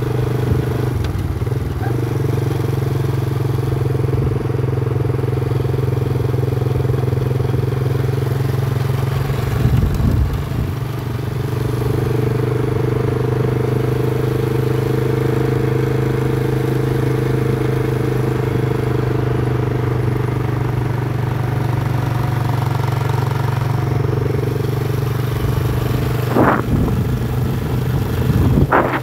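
Motorcycle engine running at a steady pitch, with a brief change about ten seconds in and two short sharp sounds near the end.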